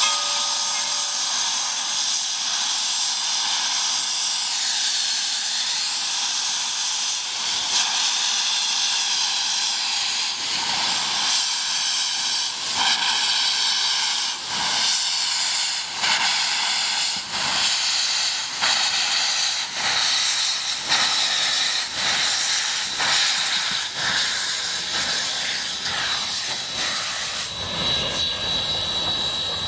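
Skookum #7, a 2-4-4-2 articulated steam logging locomotive, starting a train of empty log cars with steam blowing from its open cylinder cocks: a loud steady hiss. From about a third of the way in, regular exhaust chuffs join it, about one and a half a second.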